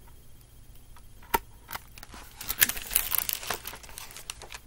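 Paper rustling and crinkling as a picture book's pages are turned and handled close to the microphone, with a single sharp click about a second in and the rustling building up from about halfway.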